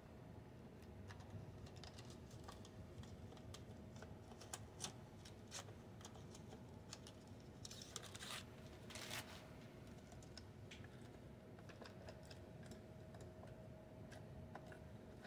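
Faint, scattered small clicks and taps of hands handling a plastic-bodied model locomotive, with two short rustles about eight and nine seconds in.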